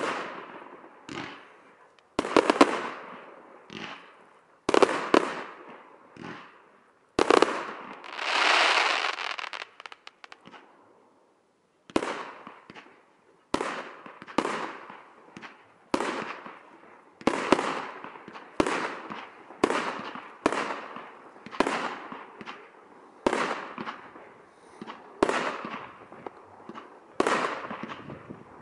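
Aerial fireworks bursting overhead: a string of sharp bangs, each trailing off. About eight seconds in comes a longer rush of noise, then a brief lull, then a steady run of shots at about one a second.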